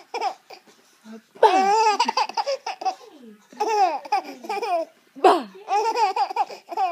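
An infant laughing in repeated high-pitched bouts, each a rapid run of breathy pulses that slide down in pitch. The longest bout starts about a second and a half in, and another loud one comes around five seconds in.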